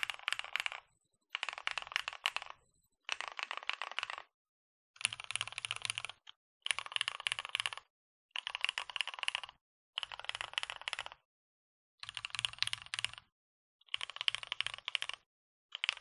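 Typing on a Matrix 8XV 2.0 Add custom mechanical keyboard: lubed and filmed Cherry MX Black linear switches on a top-mounted aluminium plate with no sound dampening, under Hammerworks CRP keycaps. Fast runs of keystrokes come in bursts about a second long with brief pauses between, about eight bursts in all.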